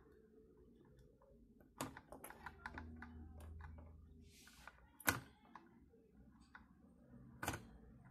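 Faint, scattered clicks and taps from a motherboard and soldering iron being handled while a capacitor is desoldered. The sharpest click comes about five seconds in, just after a short hiss.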